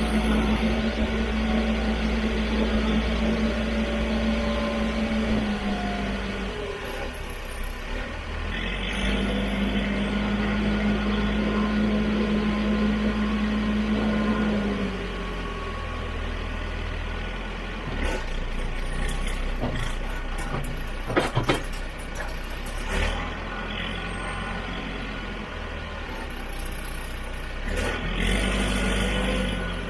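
Tractor engine running as its front loader pushes brush, with a steady droning tone that drops out about six seconds in, returns for about five seconds, and comes back briefly near the end. A few sharp cracks come about two-thirds of the way through.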